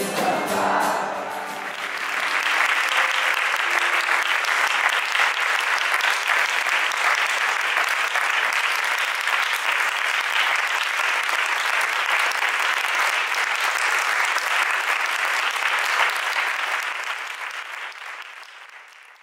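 The live band's final notes ring out and die away in the first second or two. Then an audience applauds steadily, and the applause fades out near the end.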